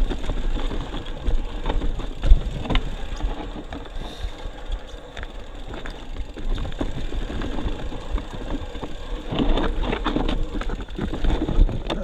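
Mountain bike riding a rough dirt trail: continuous tyre rumble with frequent sharp clacks and rattles from the bike, and wind rumbling on the microphone.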